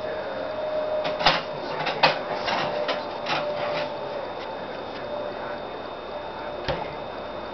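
A quick run of sharp knocks, about two a second, then a single click near the end, over a steady faint hum.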